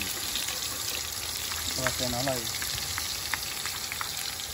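Broth boiling in a large aluminium pot on a gas burner: a steady bubbling hiss with scattered small pops.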